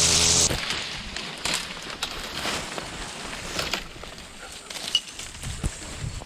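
A small engine-powered yard tool running with a steady buzz, cut off about half a second in. Then scattered light knocks and rustling of brush and debris being handled.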